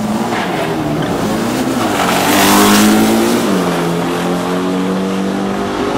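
VW Beetle drag car's engine at full throttle on a drag-strip run, its pitch holding high and then stepping down about three and a half seconds in as it shifts gear. It is loudest about two to three seconds in.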